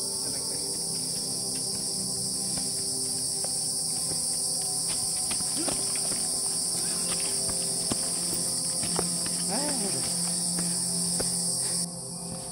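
A dense forest insect chorus: a steady, shrill high-pitched buzzing that cuts off suddenly near the end.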